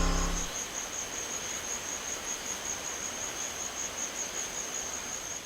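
Insects trilling: one steady, high-pitched, finely pulsing buzz over a soft hiss. A low hum cuts off about half a second in.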